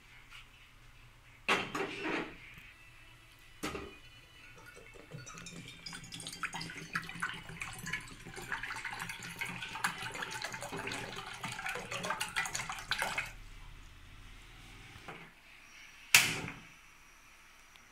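Aluminium saucepan knocking as it is set on the stove, then water poured from a plastic container splashing into the pan for about eight seconds. A loud sharp snap about sixteen seconds in comes as the gas burner is lit.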